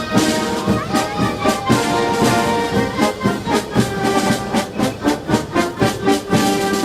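Brass band playing, with sustained brass notes over a steady, evenly spaced beat.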